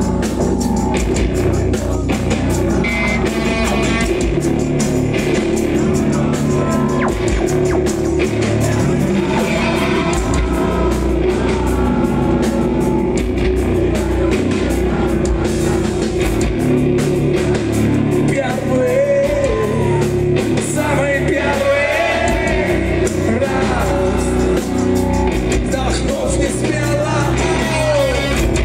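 Live heavy rock band playing loudly through a PA: distorted guitars over a steady drum beat, with a wavering melodic line coming in past the middle.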